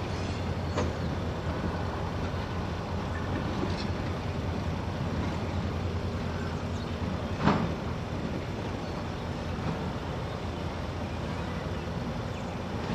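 Steady low engine rumble, with one sharp bang about seven and a half seconds in and a fainter click near the start.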